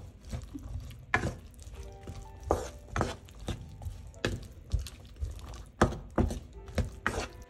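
Wooden spatula scraping and knocking against a nonstick pan, stirring peas, sweetcorn and diced onion, in quick uneven strokes about twice a second.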